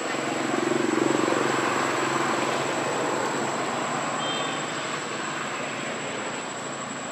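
A distant engine running, swelling about a second in and then slowly fading away, with a constant high-pitched whine behind it.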